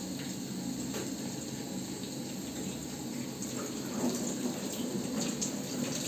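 Steady rushing hiss of khichdi cooking in a steel pot on a small gas burner mounted on an LPG cylinder, with a few light clinks of a plastic spatula against the pot.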